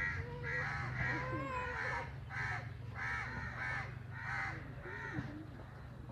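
A bird calling over and over, short arched calls about two a second that grow fainter towards the end, over a low steady hum.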